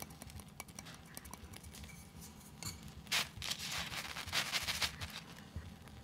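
A small metal cup scraping and spreading dry coffee grounds across paper: faint gritty crackling, with two louder scratchy rustles about three and four and a half seconds in.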